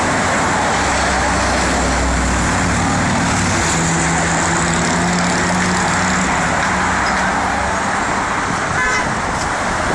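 Loud, steady urban traffic and heavy engine noise, with a low rumble early on and a low droning tone in the middle.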